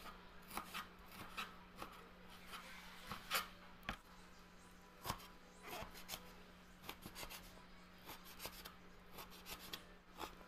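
Knife cutting raw pork on a plastic cutting board: faint, irregular taps and knocks of the blade on the board, over a faint steady hum.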